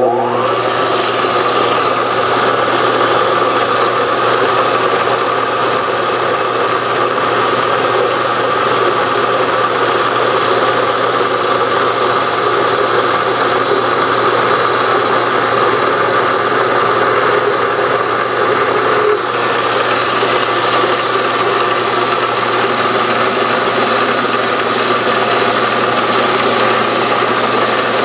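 Milling machine motor and spindle running steadily, turning a center drill in the chuck while it center-drills the marked screw holes in a steel tool holder block. A brief dip in the sound about 19 seconds in.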